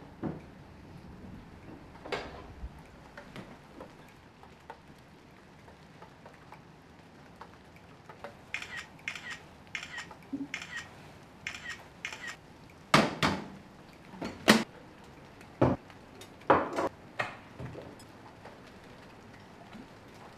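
Kitchen handling sounds: dishes and cutlery knocking and clinking. In the middle comes a quick run of about seven short clicks, a phone camera's shutter sound as a salad is photographed. A few louder knocks and clinks follow.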